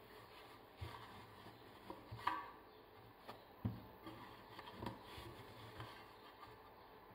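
Faint, irregular knocks and soft rubbing as shaped bread dough is pressed by hand into a metal loaf tin.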